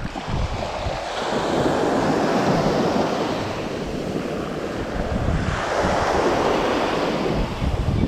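Small waves washing up a sandy beach, surging in twice, with wind buffeting the microphone.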